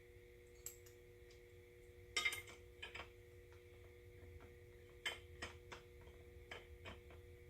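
Light clicks and clinks of the metal guard being worked onto the gear head of a Milwaukee M18 4.5-inch angle grinder: a loudest clatter about two seconds in, then a string of separate taps later on. A faint steady hum lies underneath.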